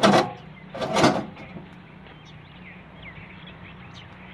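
A concrete block scraping twice as it is pushed into place on top of a stack of blocks, two short rough scrapes in the first second and a half. After that a low steady hum and faint bird chirps.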